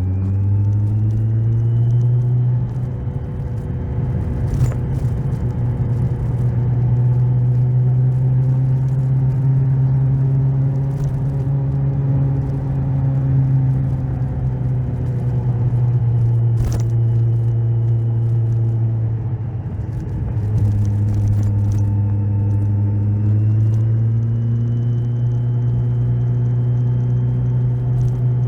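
Kawasaki Z1000SX inline-four engine on the move. It climbs in pitch as it accelerates at the start, then holds a steady note at speed. About twenty seconds in it drops back briefly, then pulls up in pitch again.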